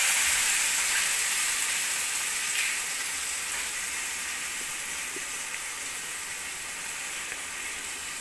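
Onions, garlic and chillies sizzling in hot oil in a frying pan just after soy sauce has been poured in; the sizzle dies down slowly as the liquid cooks off.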